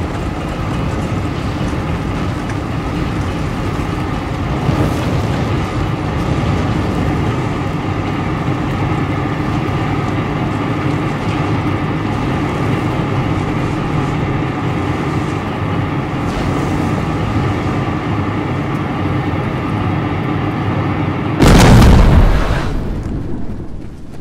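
Film soundtrack of a burning oil-well gusher: a steady, dense rumble with held tones over it. About 21 seconds in comes one loud explosion, the charge set off to blow out the well fire, which dies away over about two seconds.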